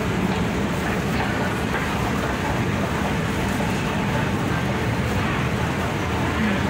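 Steady hum and din of a busy MRT station, heard from a moving escalator, with no single event standing out.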